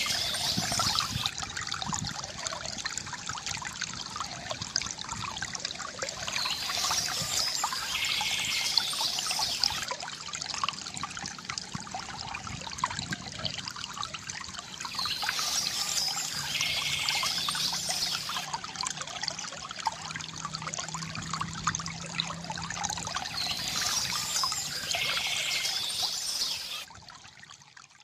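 Small stream trickling and splashing steadily, the same stretch of water sound repeating about every eight to nine seconds; it drops away sharply near the end.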